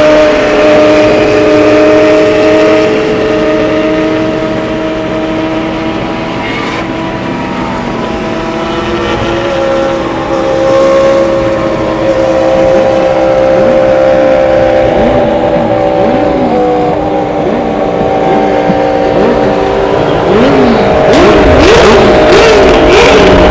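Twin-turbo supercar engines running in a convoy: a steady engine drone at first, then revs quickly rising and falling over and over in the second half. Near the end come a few sharp exhaust pops and bangs, the kind a tuned twin-turbo Lamborghini Gallardo makes when it spits flames.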